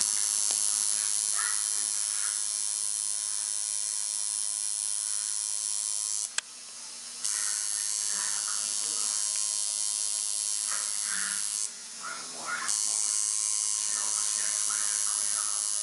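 Tattoo machine buzzing steadily while the needle lines a tattoo into skin. It stops briefly twice, about six and about twelve seconds in, and starts up again each time.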